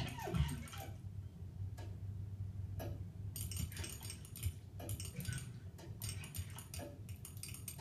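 Bug clicking in short rapid trains, each under a second long, coming every second or so.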